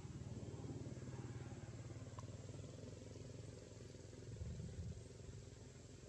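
An engine running steadily as a low, fast-pulsing hum, a little louder in the first few seconds.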